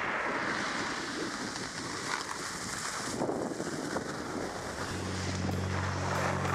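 Wind rushing over the camera microphone and skis sliding on snow during a downhill run. About five seconds in, a low steady hum joins.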